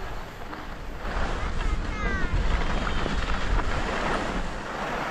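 Wind buffeting a GoPro Hero 10's microphone while skiing down a groomed piste, with the hiss and scrape of skis on snow, louder from about a second in.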